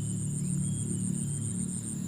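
Background music with a low, steady drone, over a high, evenly pulsing insect trill that cuts off near the end.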